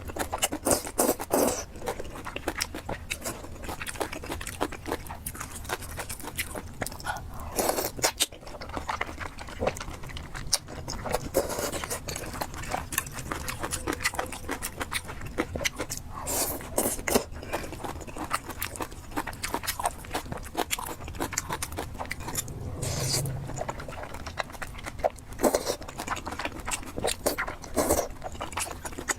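A person eating spicy fried noodles and pork close to the microphone, mukbang-style: chewing and biting with many short, sharp clicks throughout.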